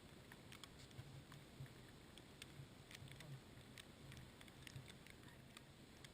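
Near silence: a faint low rumble with scattered light ticks.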